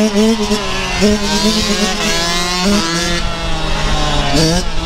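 Dirt bike engines revving as the bikes accelerate along the street, the pitch climbing and falling back several times as the riders work the throttle and shift.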